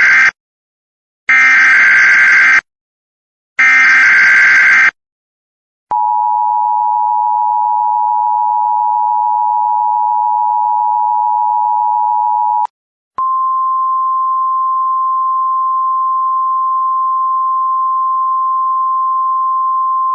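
Emergency Alert System header and attention tones. Three short buzzy data bursts of the SAME header, the first already ending, sound about a second and a half apart. Then comes the two-tone attention signal, held steady for about seven seconds, and after a brief gap a single steady weather-radio attention tone for about seven seconds more.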